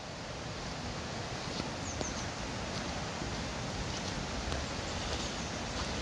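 Steady rushing outdoor background noise, with a few faint, high bird chirps about two seconds in.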